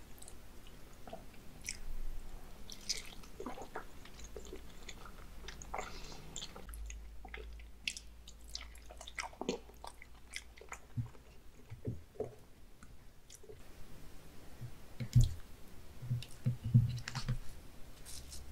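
Close-miked chewing of raw salmon sashimi: soft, wet mouth sounds with many small clicks and smacks. Near the end come a few louder soft thumps as a slab of fish is handled.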